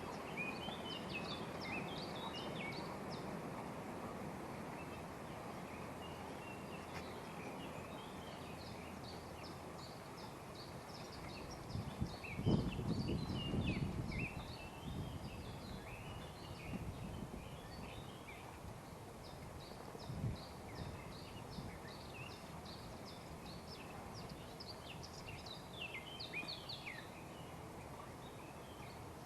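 Small birds chirping and singing throughout, over a steady outdoor hiss. A louder bump and rustle comes about twelve seconds in, and a shorter knock around twenty seconds.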